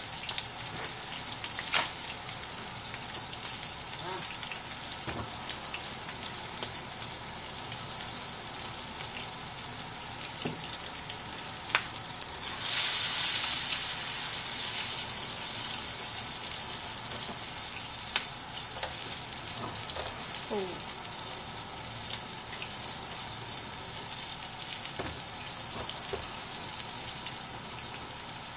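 Rib-eye steak sizzling in hot butter and olive oil in a skillet. About 13 seconds in the sizzle jumps suddenly louder as the steak is flipped onto its other side, then slowly settles back. A few light clicks sound on the pan.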